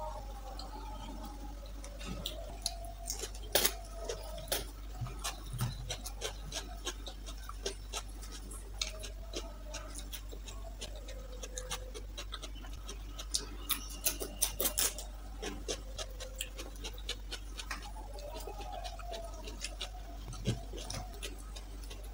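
Close-miked eating with the fingers: wet chewing, lip smacks and fingers picking at curried chicken leg and rice, heard as a scatter of short sharp clicks, busiest around a sixth and two-thirds of the way through, over a steady low hum.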